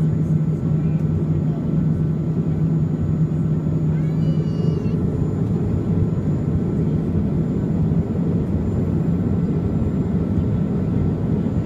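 Steady low rumble heard inside the cabin of a Boeing 737-300, its CFM56 turbofan engines running at low power while the plane taxis, with a faint steady high whine. A brief high rising sound about four seconds in.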